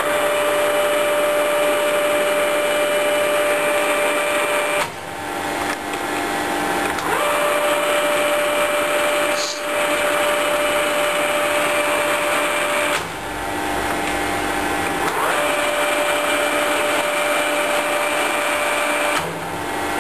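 Colchester Mascot lathe headstock gearbox running with the spindle turning, a steady mechanical run with whining gear tones. The sound breaks off and dips briefly about five, nine and a half, thirteen and nineteen seconds in, with a click near the middle, as the spindle speed is changed and the gears run up again at the new speed; this is a speed-by-speed check of the spindle gears.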